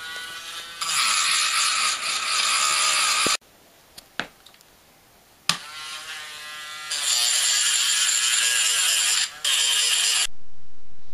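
Small handheld corded electric power tool running against a workpiece: a motor whine with a gritty scrape. It stops and starts again abruptly a few times, and its speed wavers about midway.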